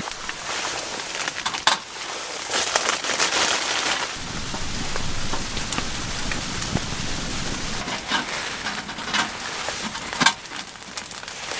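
Rustling and crunching handling noise with scattered sharp clicks and snaps, as camping gear is packed up in the snow.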